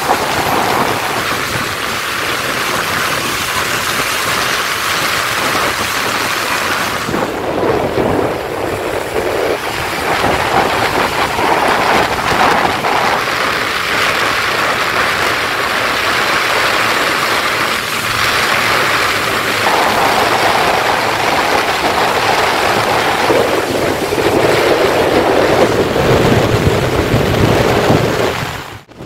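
Steady hiss of heavy rain mixed with the noise of road traffic, motorbikes and cars. The sound cuts out briefly near the end.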